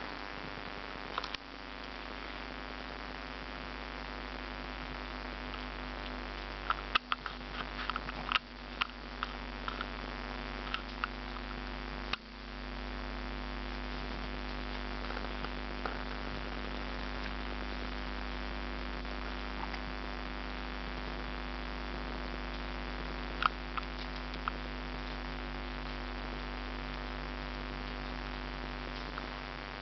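Steady electrical hum, with a few short clicks and rustles scattered through it, most of them in a cluster about a quarter of the way in.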